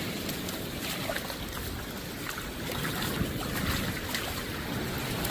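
Steady wash of sea surf with wind noise, with scattered light clicks and taps through it.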